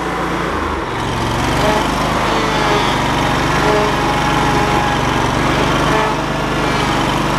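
Riding lawn mower's engine running steadily as the mower is driven, with the engine note shifting about a second in.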